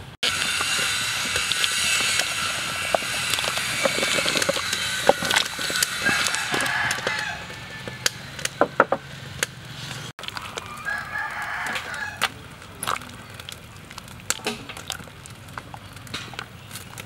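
Chickens clucking and a rooster crowing, loudest in the first seven seconds, with scattered sharp clicks and knocks throughout; after that the sound drops to a quieter background with occasional short calls.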